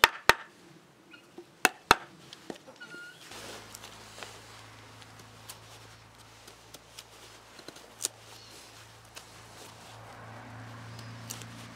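A wooden baton striking the spine of a knife to cut a notch into a green stick: a few sharp knocks in the first two seconds. After that, a knife carving a stick, with faint scraping and small clicks from the blade taking off shavings.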